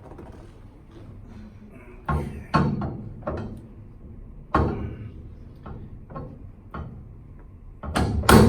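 A series of clunks and thuds from a chiropractic treatment table as a person gets onto it and lies down, with the loudest cluster near the end.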